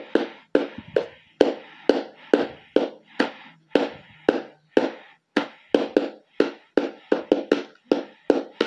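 A run of sharp percussive knocks or drum-like hits, about two a second, coming faster near the end, with a low steady tone under the first half.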